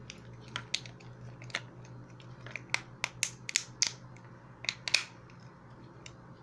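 A dozen or so sharp, irregular clicks and snaps from small parts being handled or cut, over a steady low hum.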